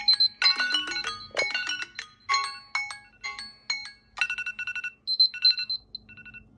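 Smartphone alarm tone playing a quick melody of short, high notes; about four seconds in it changes to short repeated clusters of notes that grow fainter near the end.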